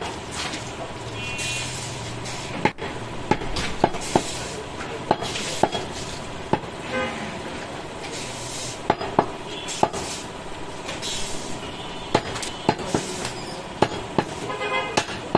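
A butcher's cleaver chopping goat meat and bone on a wooden block: sharp knocks at an irregular pace, about one a second. Street traffic runs behind, with vehicle horns sounding now and then, more often near the end.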